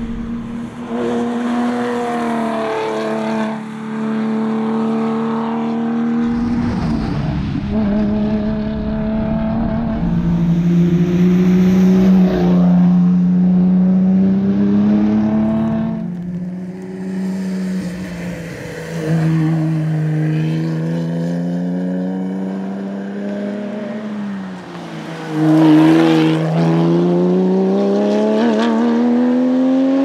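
996 Porsche 911 GT3's naturally aspirated flat-six engine running hard as the car is driven on a tarmac rally stage, passing by. The engine's pitch falls and rises through gear changes, then climbs steadily under acceleration near the end.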